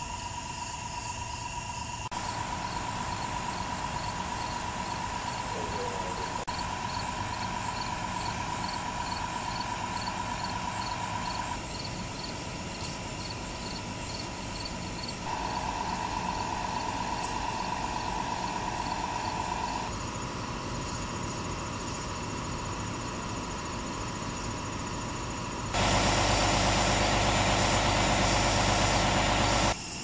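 Emergency vehicles idling, a steady engine drone with crickets chirping in a regular rhythm behind it. The sound jumps abruptly several times, and a louder, even rushing noise takes over for the last four seconds.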